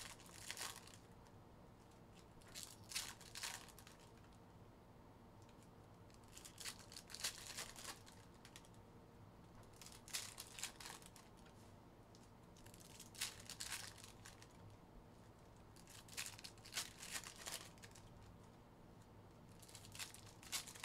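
Foil wrappers of Panini Optic basketball card packs crinkling and tearing faintly as they are opened, in short bursts every few seconds, over a low steady hum.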